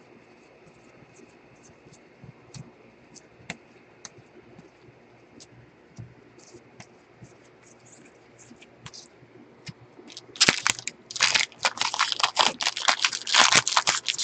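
Faint clicks and flicks of baseball cards being slid through a stack by gloved hands. From about ten seconds in, loud crinkling and tearing as a trading-card pack's wrapper is ripped open.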